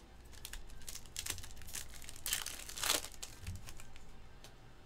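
Foil trading-card pack wrapper crinkling and being torn open, with a string of sharp rustles and the longest, loudest rip about two and a half seconds in.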